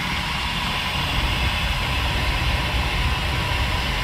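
Large diesel truck engine idling steadily, a continuous low rumble with an even hiss over it.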